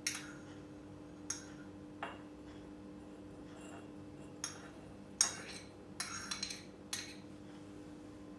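A metal spoon clinks against a ceramic mug several times, in short separate knocks, as sugar is spooned in. A faint steady hum runs underneath.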